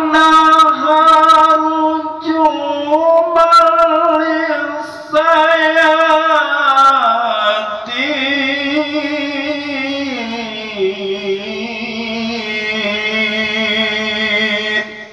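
A single voice chanting in a drawn-out melodic style, with long held notes and ornamented turns. A short break comes about five seconds in, the melody sinks lower in the second half, and the voice breaks off at the end.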